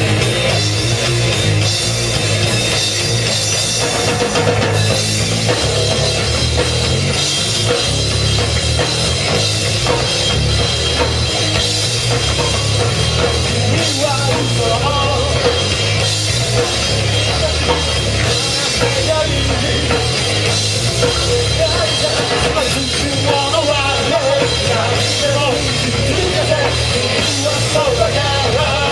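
A rock band playing live, with a drum kit driving a steady beat under loud, continuous music.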